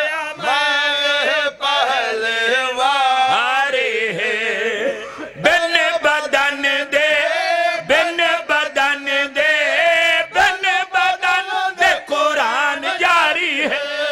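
A group of men chanting a Punjabi devotional verse together in a Shia majlis recitation, in sung phrases with long held, wavering notes. There is a short break about five seconds in.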